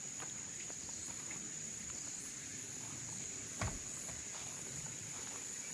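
Insects droning steadily at a high pitch, with faint scattered taps and one soft thump a little after halfway through.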